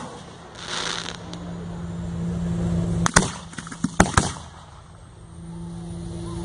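Aerial firework shells bursting with sharp bangs: one about three seconds in, then two close together about a second later, with a brief hiss about a second in. A steady low hum runs underneath between the bangs.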